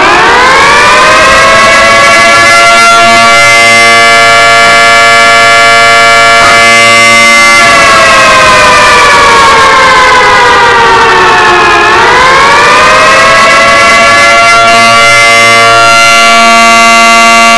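Loud civil defense siren wailing in several tones at once. It winds up in pitch at the start and holds steady, then sinks slowly for about four seconds around the middle before winding back up and holding again.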